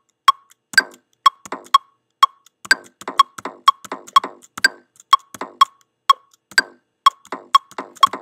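Ableton Live's metronome ticking steadily at about two clicks a second, with a drum pattern played in by hand on a sampled 808 drum kit over it while the clip records.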